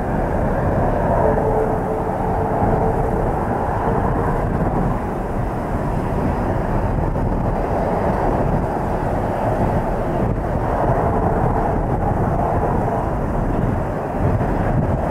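Boeing 737-300's CFM56 jet engines running at low taxi power: a steady jet rumble with a faint whine that comes and goes. Gusty wind buffets the microphone.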